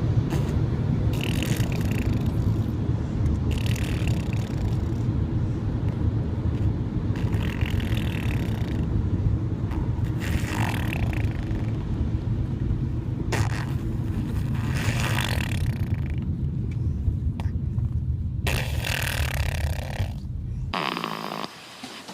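A sleeping baby snoring, one snore every few seconds, over a steady low rumble that cuts off near the end.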